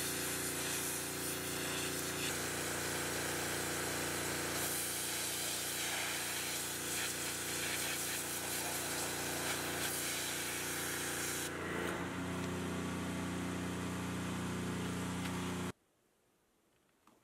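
Pressure washer blasting a deer skull: a steady hiss of spray over the running machine's hum. About two-thirds through the spray thins and the hum shifts in pitch, and near the end the sound cuts off suddenly.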